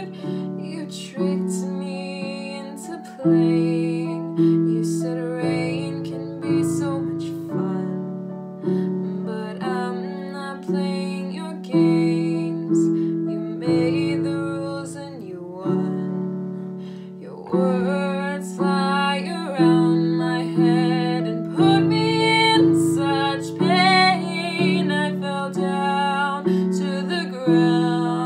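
A woman singing a slow song over acoustic guitar chords, a new chord struck about once a second.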